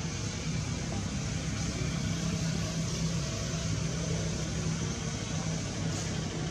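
Steady low mechanical hum, like a running engine, under a constant hiss.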